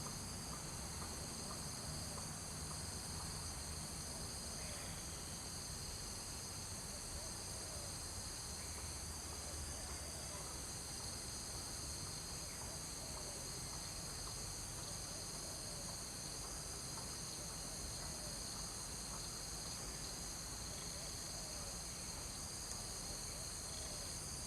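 Steady chorus of insects: a continuous high buzz in several stacked bands that holds unchanged throughout, over a low rumble.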